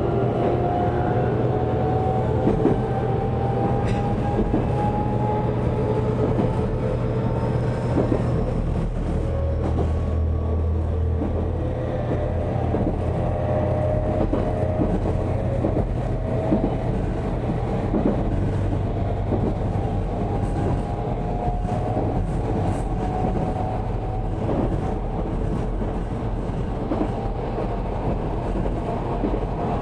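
JR Kyushu 813 series electric train running, heard from just behind the driver's cab. The traction motors' whine rises slowly in pitch over the first ten seconds or so as the train gathers speed, over steady running noise with repeated clicks of the wheels over rail joints.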